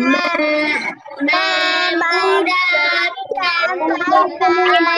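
Children singing a song together over an online video call, with long held notes.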